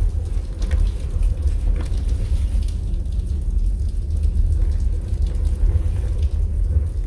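Steady rain with scattered drips and taps, over a deep, steady rumble.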